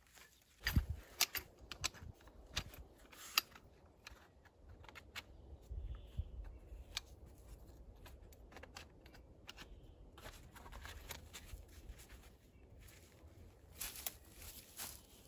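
Hands handling camping gear: a fabric pouch and a folded strapped item being unpacked and unfolded, with rustling and a string of sharp clicks and taps, busiest at the start and again near the end.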